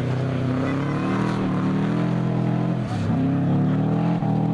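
Rally car engine accelerating hard, revs climbing, dropping briefly at an upshift about three seconds in, then climbing again.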